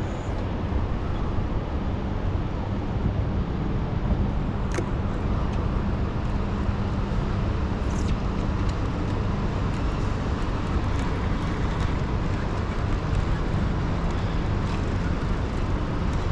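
Boat motor running steadily under way, a low even hum.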